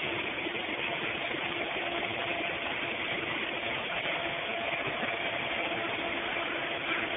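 Steady drone of industrial machinery, an even roar with a constant low hum running through it.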